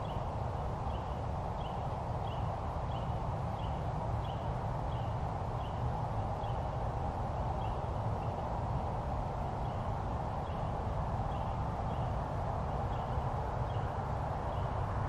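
Steady outdoor background noise with a low rumble, and a faint short high chirp repeated about every two-thirds of a second, with a brief pause in the middle.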